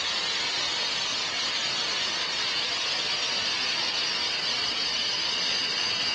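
Compressed air hissing steadily out of a 10-inch dirt racing tire through the quick-release valve of a tire stagger dyno as the tire deflates. A thin high whistle comes in over the hiss in the second half.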